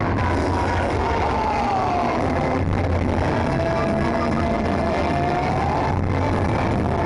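Loud music with a deep held bass line and a long higher tone that slides slowly down and back up, over the steady din of a crowd.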